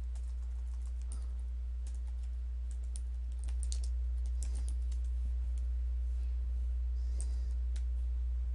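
Scattered, faint keystrokes on a computer keyboard, typing a line of text, over a steady low hum that grows louder about three and a half seconds in.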